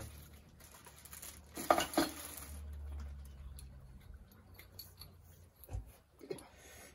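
Small metal parts, bolts and fittings, clinking and tapping as they are handled, with a louder metallic clank about two seconds in and scattered lighter ticks after it.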